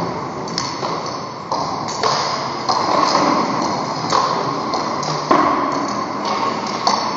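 Table tennis balls being struck with a paddle and bouncing on the table: sharp, hollow clicks coming about once a second, unevenly spaced, as balls are fed one after another.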